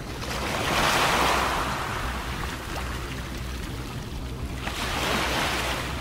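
Small waves washing in against an ice-crusted rocky shoreline, surging twice, about a second in and again near the end, over a steady low rumble.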